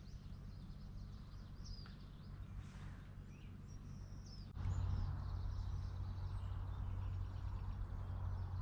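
Birds chirping in short high calls over faint outdoor background noise; about halfway through, a louder, steady low rush of noise comes in abruptly.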